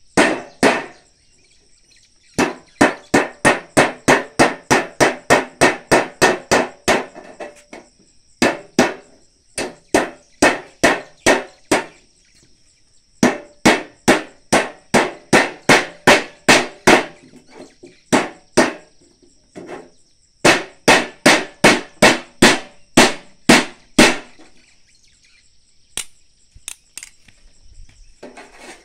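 Hand tool striking or cutting at a gutter during installation: runs of sharp, regular strokes about three a second, broken by short pauses.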